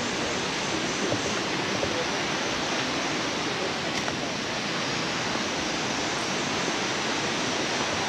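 Steady rush of water from the waterfall and its stream, an even hiss that holds level throughout.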